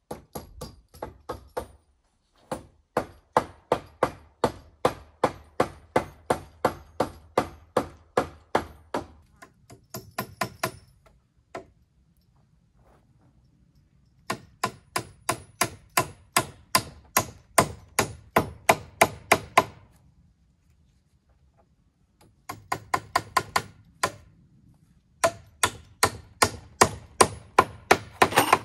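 Hammer blows in steady runs of about three strikes a second, each with a short ring, broken by brief pauses between runs.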